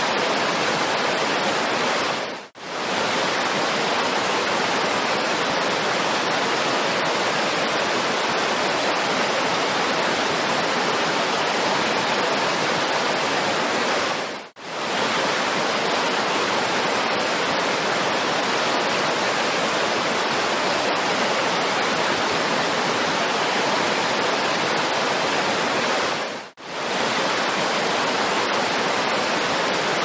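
Waterfall: water rushing steadily down a rocky cascade. The rush fades out briefly and comes straight back three times, about twelve seconds apart.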